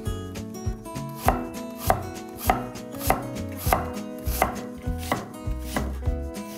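Kitchen knife chopping on a cutting board in slow, even strokes, a little under two a second.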